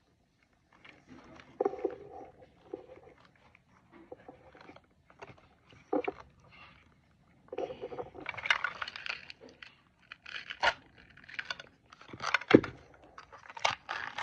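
A plastic toy surprise capsule being handled and its crinkly wrapper peeled off: irregular crackling and rustling, with several sharp plastic clicks in the second half.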